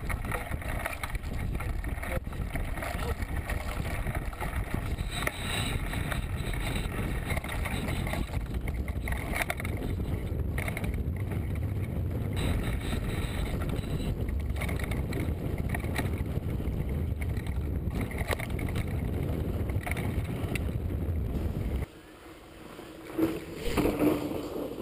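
Riding noise from a camera mounted on a mountain bike chasing another along a dirt forest trail: wind rumbling on the microphone, with the rattle and clatter of the bike over rough ground. Near the end the sound drops suddenly, then a mountain bike rolls close past with a brief crunch of tyres on stony ground.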